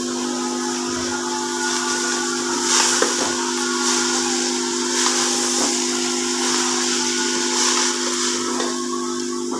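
Chopped fenugreek leaves frying in an aluminium pot, hissing with steam; the hiss swells and fades every few seconds over a steady low hum.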